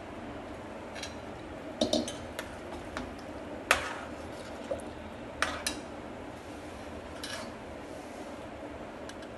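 Steel spoon stirring a pot of watery rice, dal and vegetables, scraping and clinking against the pot about six times, the loudest clink about four seconds in.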